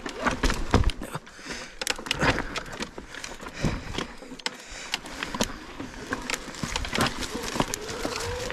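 Electric mountain bike climbing over wet rocks: irregular knocks and clatter of tyres, chain and frame against stone. Near the end a motor whine rises in pitch as the e-bike's motor pulls.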